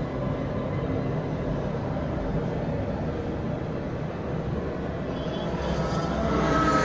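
Race-car engine soundtrack of an exhibition film played over loudspeakers: a steady low rumble, with higher tones swelling in and growing louder near the end.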